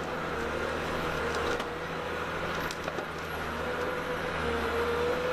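Steady low engine drone of running machinery, with a few faint ticks or cracks.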